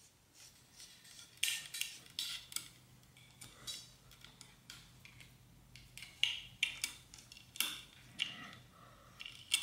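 Steel inner brake cable being slid through a length of bicycle brake cable housing: short, irregular metallic scraping and clinking as the wire feeds in, in two clusters, the second near the end.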